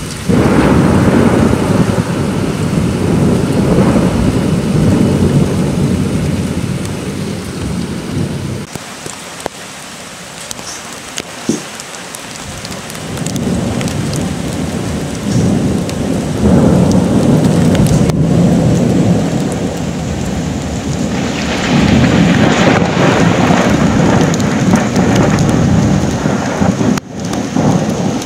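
Thunderstorm: rolling thunder over steady rain. A long peal rumbles from the start for about eight seconds, the rain carries on through a few quieter seconds, then the thunder builds again and rumbles loudest near the end.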